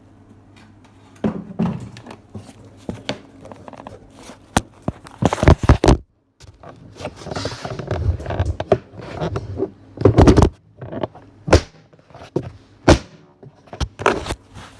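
Handling noise from a Bosch vacuum cleaner being moved about and its cord handled: irregular knocks, clicks and scraping, with the motor not running. The sound cuts out completely for a moment about six seconds in.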